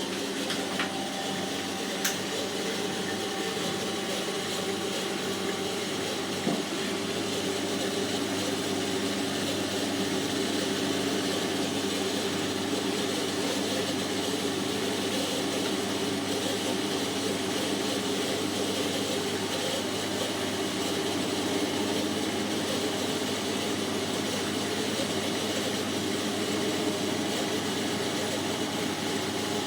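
Hotpoint NSWM 843C inverter-motor washing machine spinning with a steady whirring drone, and two short clicks about two and six seconds in. The owner reports that the machine makes an intermittent scraping noise on spin.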